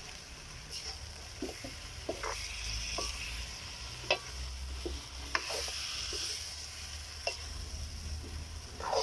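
A pot of bananas sizzling as they cook, with a spoon stirring and turning them. There is a steady hiss, and the spoon knocks and scrapes against the pot about a dozen times at uneven intervals.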